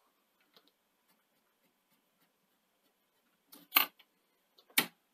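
Two sharp mechanical clicks about a second apart near the end, from a Sony SL-C9 Betamax front-loading mechanism being worked by hand. Before the clicks it is mostly quiet.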